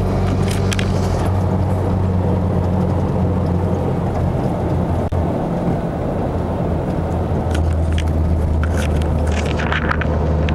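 Mazdaspeed3's turbocharged 2.3-litre four-cylinder heard from inside the cabin through a Corksport cat-back exhaust and catted downpipe, cruising at about 60 mph near 3,000 rpm: a steady low exhaust hum over road noise, which the owner calls drone-free. The hum fades about halfway through and returns stronger a couple of seconds later.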